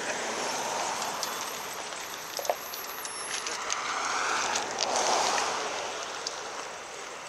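Norfolk & Western Class J 611 steam locomotive working upgrade at a distance, its exhaust heard as a steady rushing noise with no separate chuffs. It swells about a second in and again around five seconds in, with a few faint clicks.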